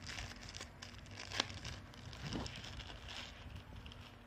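Crinkling and rustling of a white wrapper being unwrapped by hand from a coiled earphone cable, with small irregular crackles and one sharper click about a second and a half in.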